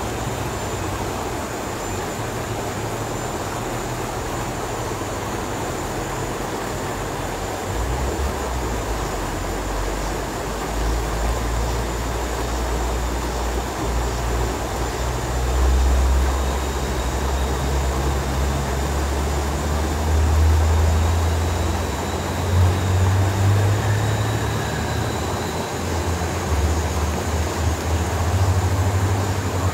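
Fast, shallow river rushing steadily over rocks. A low rumble joins in about eight seconds in and swells unevenly.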